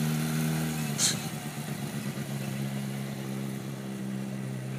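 Red sport motorcycle's engine running at steady low revs as it is ridden slowly, with a sharp click about a second in.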